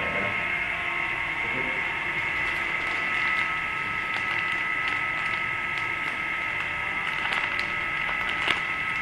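A plastic snack packet crinkling and crackling as it is handled, with scattered short crackles and one sharper click near the end, over a steady high-pitched electric whine made of several pure tones.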